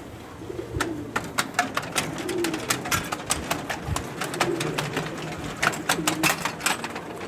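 A row of metal Buddhist prayer wheels being spun by hand one after another, clicking and clattering on their spindles several times a second. Pigeons coo in the background.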